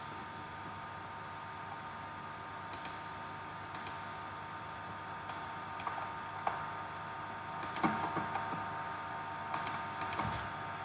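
Scattered sharp clicks of a computer mouse, several in quick pairs like double-clicks, over a faint steady hum.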